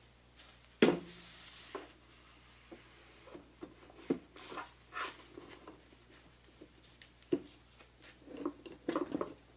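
Workbench handling of winch parts as the rope-wound drum is fitted back into the winch frame: one sharp knock about a second in, then scattered lighter knocks, clicks and rustles.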